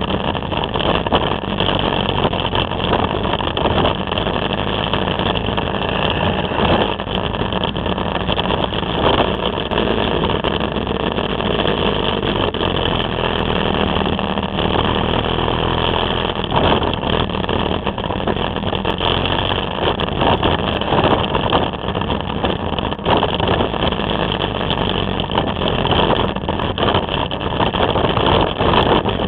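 Riding noise of a Can-Am Spyder three-wheeled motorcycle, picked up by a camera mounted on it: the engine running under a steady rush of wind and road noise.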